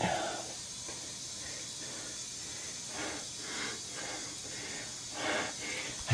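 A person breathing heavily, a few separate breaths over a steady hiss.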